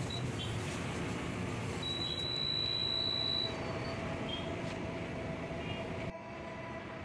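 A Cherry Nitron 70 nitrogen tyre inflator runs with a steady hiss as it fills a motorcycle tyre through its hose. About two seconds in, a long, high electronic beep sounds for a second and a half.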